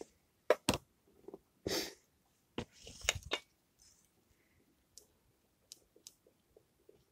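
Sharp clicks and knocks of small objects being handled, with a couple of short rustles, loudest in the first three and a half seconds. After that come faint small ticks a few times a second.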